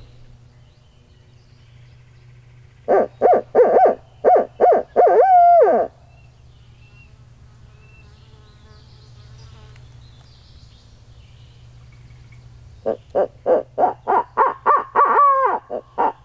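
A hunter's barred owl locator call: two rhythmic series of hoots, the first ending in a long falling note, the second starting near the end and pitched higher. It is hooted to shock a gobbler into gobbling and give away where he is.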